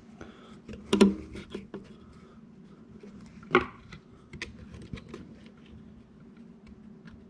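Small metallic clicks and taps as hands and a tool work the turbo's vane actuator rod and linkage, with two louder clicks, about a second in and again about three and a half seconds in, over a faint steady hum.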